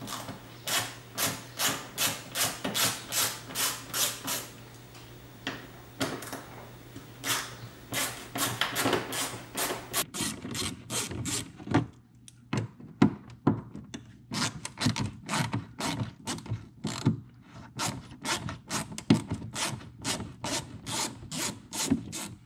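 Hand ratchet clicking in repeated back-and-forth strokes as it backs out the screws holding the Corvette's wheel-well liner. It goes at about three strokes a second at first, pauses, then returns in quicker, uneven strokes with a few louder knocks near the end.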